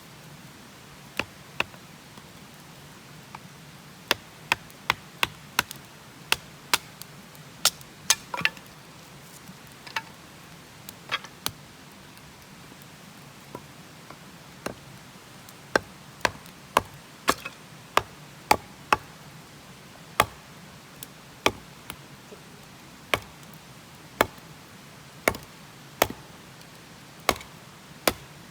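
Hand axe chopping and splitting firewood: a long series of sharp knocks on wood, at times in quick runs of two or three a second.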